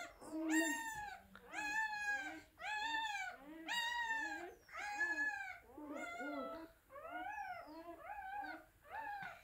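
Newborn puppies crying: a run of high, thin cries, each rising then falling in pitch, about one a second, growing shorter and fainter toward the end.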